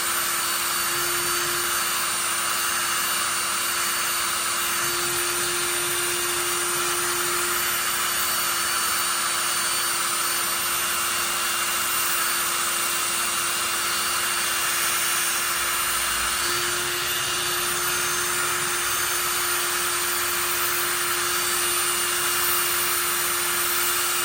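Electric drill running steadily at constant speed with its trigger zip-tied, used as a makeshift lathe while 400-grit sandpaper clearances the clutch shoe pivot holes, a steady motor whine under a sanding hiss.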